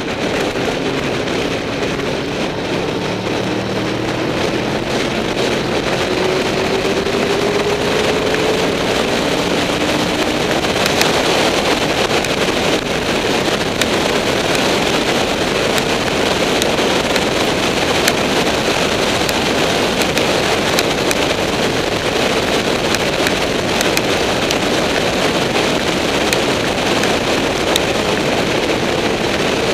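Wind rushing over a motorcycle-mounted microphone at road speed, with the Honda VFR800's V4 engine running underneath. The engine note rises steadily for several seconds near the start as the bike accelerates, then settles into a steady cruise.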